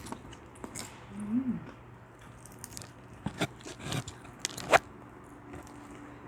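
Close-up eating sounds: crunchy food being bitten and chewed, with a few sharp crunches between about three and five seconds in, the last the loudest. A short hum about a second in.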